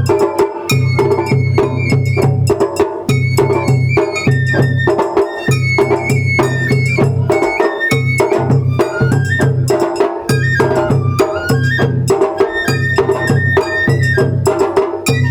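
Japanese matsuri-bayashi festival music: a high bamboo flute melody moving in steps over steady taiko drumming and sharp clicking percussion strikes.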